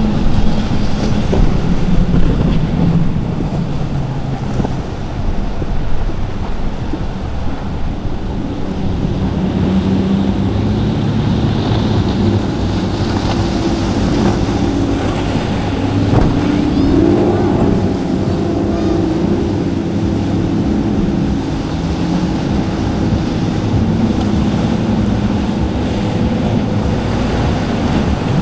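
Powerboat engines running hard through rough water, with waves breaking and wind on the microphone. First a center-console fishing boat, then a large Absolute motor yacht; the engine note rises and wavers briefly about two-thirds of the way in.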